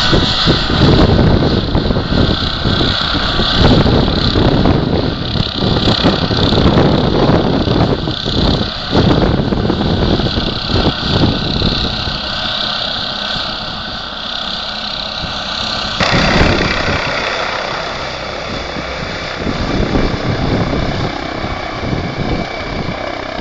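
Police helicopter's turbine and rotor running loudly as it departs, the noise easing slightly about halfway through.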